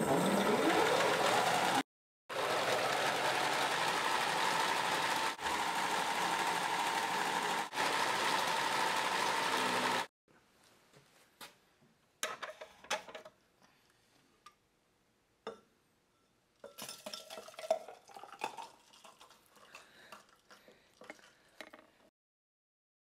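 Pedal-powered bicycle blender, driven through a skateboard-wheel friction drive off the exercise bike's flywheel, speeding up and blending ice and fruit with a loud, steady whir for about ten seconds, broken by a couple of short gaps. After that come quieter clinks and knocks of the glass blender jar being handled and its lid removed, then the smoothie being poured.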